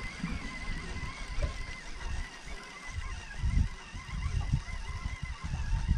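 Wind buffeting the microphone in uneven gusts, over the faint steady whine of a boat's outboard motor running at trolling speed.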